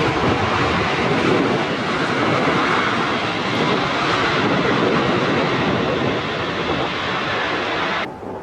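Jet airliner's engines running loud as it passes close by, with wind buffeting the microphone. The engine noise cuts off abruptly about eight seconds in.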